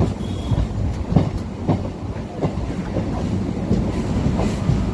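Electric multiple-unit (EMU) local train running, heard from aboard: a steady low rumble with the wheels clacking over rail joints every second or so.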